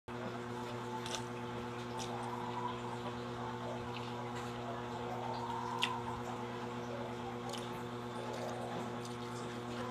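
Slurping and chewing of instant stir-fried noodles, with short wet smacks and clicks scattered throughout, the sharpest about six seconds in. A steady electrical hum runs underneath.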